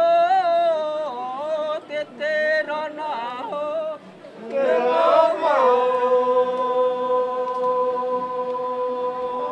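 Singing voice carrying a melody that glides up and down in short phrases, then settles about six seconds in on one long held note.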